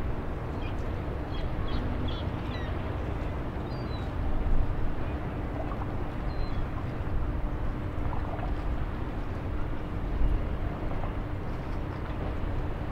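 Fishing-harbour ambience: a steady low engine hum with a low rumble underneath, and a few short high bird chirps in the first few seconds.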